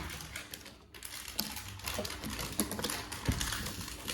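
Jigsaw puzzle pieces being handled and shuffled on a tabletop: many small, irregular clicks and taps.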